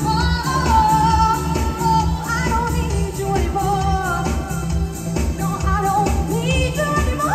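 Live pop song: a woman singing the lead over a band with a steady, heavy beat.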